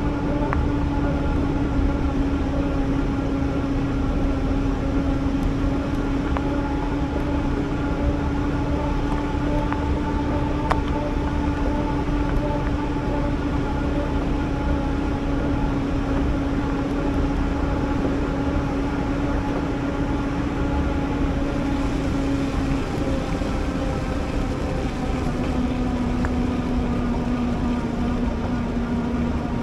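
Electric bike motor whining steadily as it drives the bike, its pitch stepping down slightly about 23 seconds in, over a steady rumble of wind and tyres.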